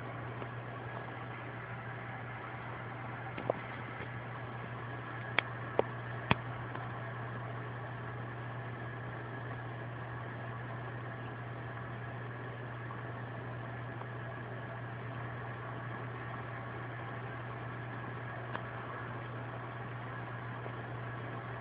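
A steady low mechanical hum, like a fan or motor running, with four sharp clicks a few seconds in and one fainter click near the end.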